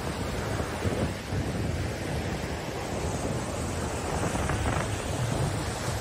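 Small Gulf of Mexico surf washing up over a sandy beach in a steady rush of water and foam, with a low rumble of wind on the microphone underneath.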